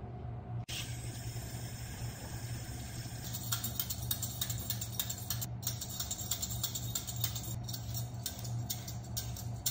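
A vegetable peeler scraping the skin off a raw sweet potato in quick, repeated strokes, starting about a third of the way in, over a low steady hum.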